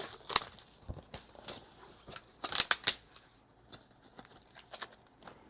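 Packaging handled while a box is unpacked: scattered light clicks and taps, with one louder rustle of packing material about two and a half seconds in.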